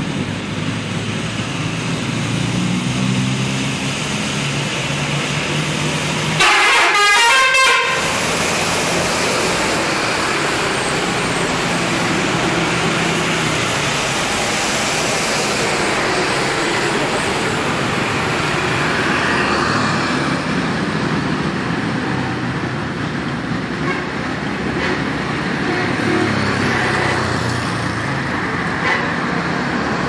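Road traffic with buses sounding multi-tone 'telolet' air horns as motorcycles and buses approach and pass. A short loud burst about seven seconds in.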